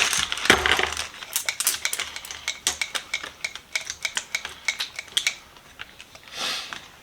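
Small steel sockets clinking together inside a plastic zip bag, about three or four clinks a second, as the bag is worked to coat them in cutting oil. A soft rustle of the bag comes at the start and again near the end.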